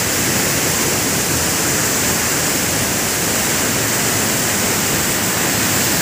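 Waterfall pouring down a rock gorge: a loud, steady rush of falling water.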